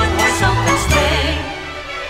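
Background music: an upbeat Christmas song with a singing voice over a steady bass beat. The bass and beat drop out about one and a half seconds in.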